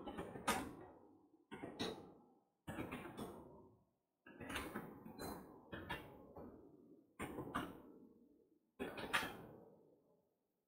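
Computer keyboard typing, faint: about six short bursts of keystrokes with silences between them, as command lines are typed.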